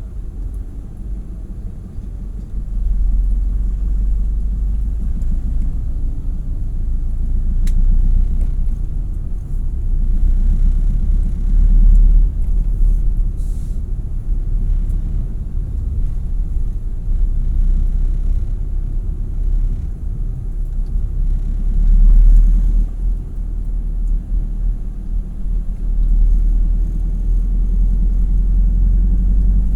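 Low, steady rumble of a road vehicle on the move, growing louder about three seconds in and swelling briefly twice.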